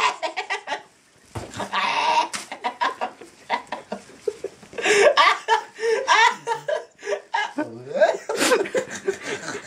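People laughing and giggling in bursts, with rapid pulses of laughter at the start and more fits of laughter later on.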